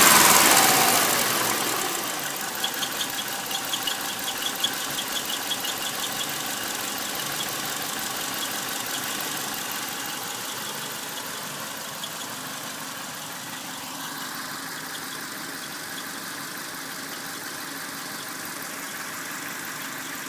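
Subaru EJ251 2.5-litre flat-four falling back from higher revs to idle in the first couple of seconds, then idling steadily with a rhythmic high-pitched squeak for several seconds. The squeal comes from the bellhousing/transmission flange area at idle and goes away under throttle; the owner has ruled out the belts, tensioners, accessories and release bearing and wonders about crankshaft bearing damage.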